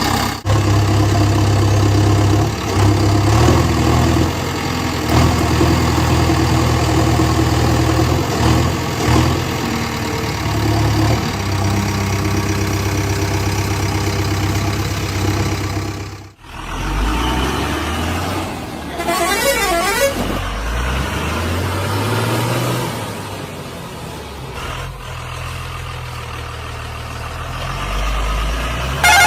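Heavy vehicle engines running: a steady engine drone, a sudden break about halfway through, then engines rising and falling in pitch, with a brief warbling horn-like tone in the second half.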